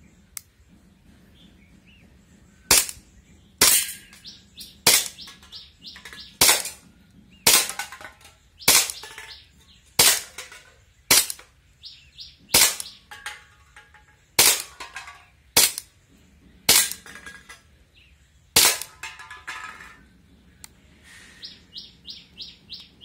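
CZ Shadow 2 gas airsoft pistol firing about a dozen sharp single shots, roughly one a second, with fainter clicks and knocks after several of them. Birds chirp in short repeated notes after the shooting stops.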